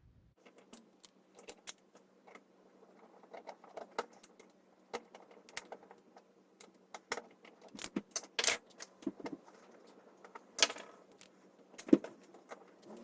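Irregular small clicks, taps and rattles of screws and a plastic tape measure case being handled and screwed back together, with a sharp knock near the end.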